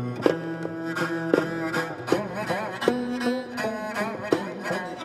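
Korean traditional music being played live: a wavering bowed-string melody with plucked notes and sharp percussive strokes.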